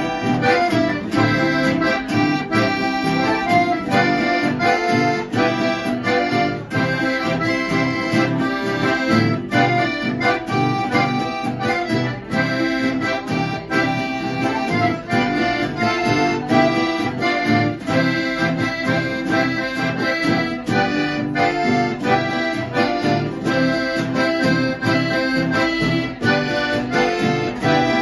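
Two button accordions playing a chamamé together: a melody over a steady, rhythmic bass-and-chord accompaniment.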